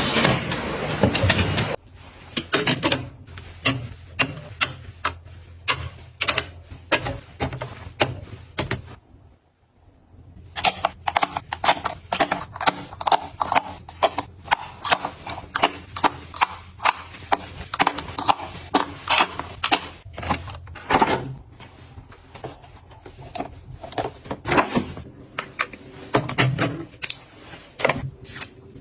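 Containers and small items being handled and set down, many small clicks and taps at an irregular pace, with a louder rustle in the first couple of seconds and a brief pause about a third of the way in.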